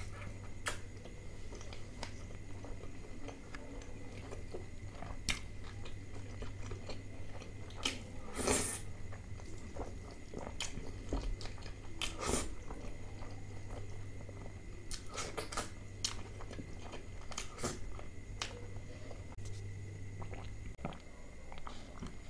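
Close-up chewing and biting of a man eating saucy butter chicken with his hands. There are repeated wet smacks and sharp mouth clicks over a faint steady low hum, which stops near the end.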